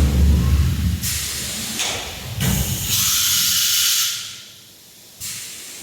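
CNC machining center returning its tool to the tool magazine: repeated blasts of compressed air hissing, the longest about two and a half seconds in, over the low hum of the axis motors.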